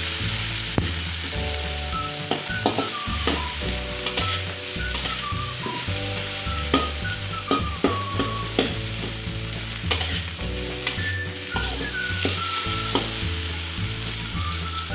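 Tomato, shallots and garlic sizzling in hot oil in a wok while a metal spatula stirs them, scraping and clicking against the pan many times at irregular moments.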